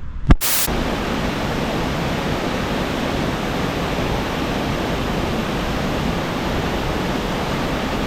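A sharp click, then a steady, even rush of falling water from a waterfall.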